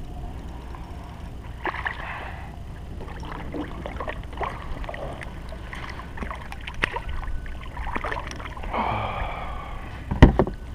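Hooked white crappie splashing at the surface beside a kayak as it is reeled in and netted: two short bursts of splashing, about two and nine seconds in, with scattered small clicks between and a sharp knock near the end. Wind rumbles on the microphone.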